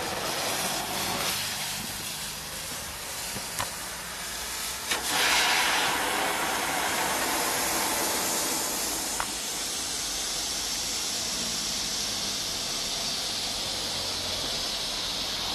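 Nico Bengal flare burning with a steady hiss that grows louder about five seconds in, with a few sharp pops.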